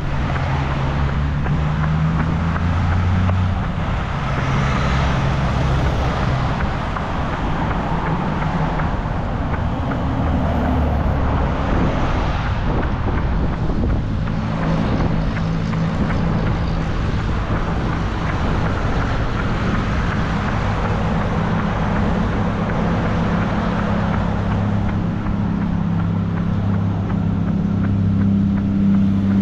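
Motor traffic: a steady low engine drone with a continuous wash of road noise, the engine pitch shifting now and then.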